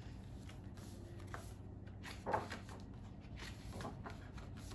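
A few soft rustles of paper sheets being handled, the loudest about halfway through, over a faint steady room hum.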